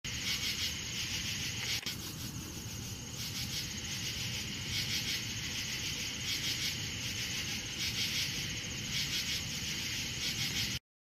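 Crickets chirping in a dense, pulsing chorus, with one faint click about two seconds in. The sound cuts off suddenly near the end.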